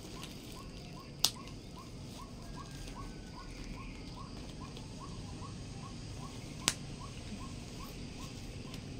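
Two sharp clicks about five seconds apart as a leather handbag with a metal clasp and chain strap is handled and opened. Under them, a faint chirp repeats steadily about three times a second, like a small bird calling.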